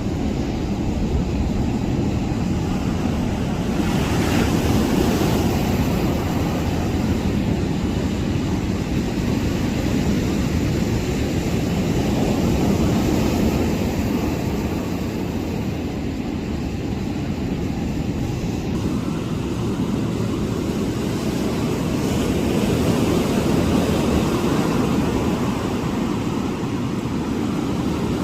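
Wind rumbling on the microphone over ocean surf, a steady noise that swells and eases a few times.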